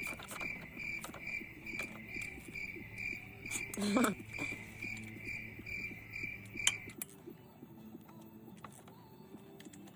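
Cricket chirping steadily, about three chirps a second, cutting off suddenly about seven seconds in. Scattered light clicks and a brief louder sound about four seconds in.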